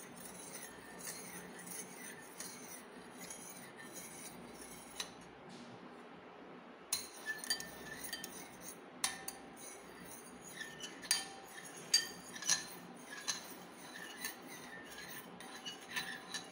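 A metal spoon stirring a mixture in a glass bowl, clinking against the glass in irregular light taps, with a short pause about six seconds in.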